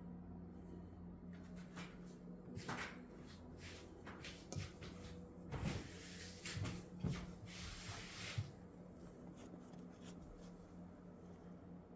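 A chair creaking and knocking as it is handled: a string of sharp clicks and knocks with two short rustling stretches in the middle, over a faint steady hum.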